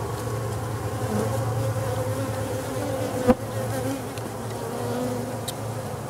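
A calm cluster of honeybees buzzing steadily in an open hive, with one sharp tap about halfway through.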